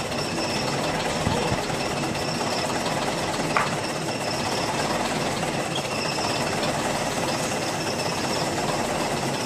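Steady mechanical running noise with a faint high whine, and a single light click about three and a half seconds in.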